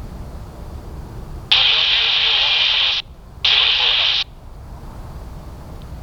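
Air traffic control radio feed: two sudden bursts of radio hiss from keyed transmissions with no readable words, the first about a second and a half long, the second shorter, each cutting off abruptly. Low airport rumble underneath.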